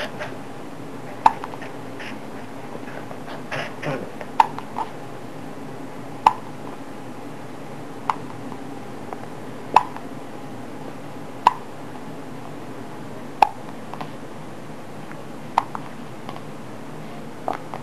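Repeated hiccups, a short sharp hic about every two seconds, nine in all.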